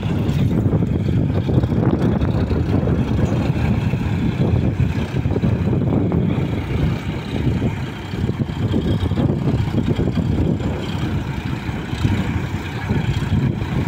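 Diesel engines of two Sonalika tractors running hard under load as one tractor tows the other, stuck in sand with a loaded trolley, through shallow water. A steady low engine drone that swells and dips.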